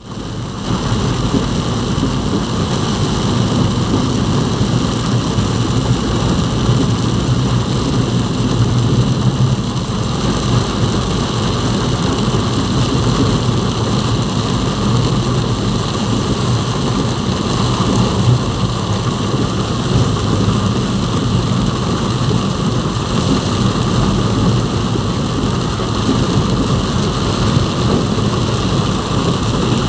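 Heavy rain falling on a moving vehicle, heard from inside the cab, over steady engine and road noise.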